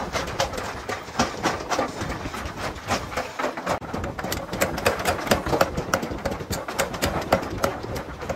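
Mechanical power hammer repeatedly striking red-hot steel held in tongs, forging a blacksmith's hammer head: a quick, irregular run of sharp metallic blows, several a second.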